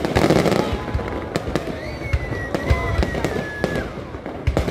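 Fireworks display: a dense crackle of pops and bangs throughout, with a louder burst right at the start and a thin whistling tone held for about two seconds in the middle.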